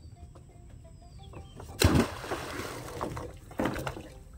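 A rusty iron grapnel anchor thrown from a wooden boat hits the river with a sudden loud splash about two seconds in, followed by about a second of churning water, then a second, softer splash near the end.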